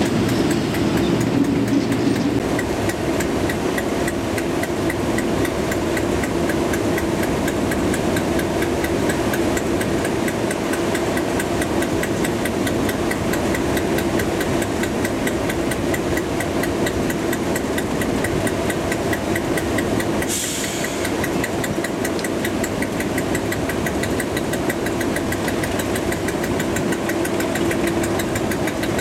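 Diesel locomotive engine idling steadily, with a short hiss about two-thirds of the way through.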